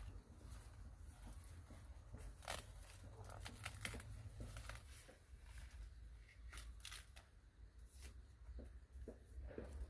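Faint scattered rustles and light clicks, like something being handled, over a low steady rumble.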